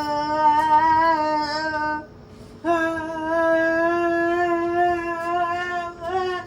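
A child's voice humming two long, steady held notes, the second longer than the first, with a short break between them.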